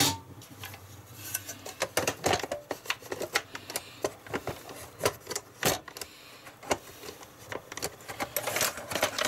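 A removable non-stick grill plate being fitted by hand into the side clips of a George Foreman grill: a run of irregular plastic and metal clicks, knocks and rattles.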